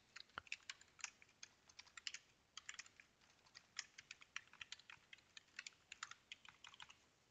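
Typing on a computer keyboard: a faint run of quick, irregular keystrokes.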